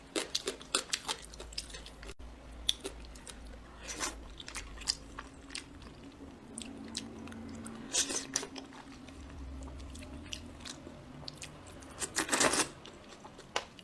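Close-up chewing and biting of crunchy food: a run of crisp crunches, louder clusters coming about 4, 8 and 12 seconds in.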